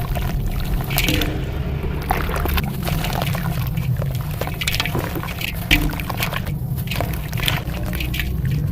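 Shaped pieces of dry red dirt and coal crunching and crumbling: a run of gritty crackles and small crunches, with grains trickling, over a steady low hum.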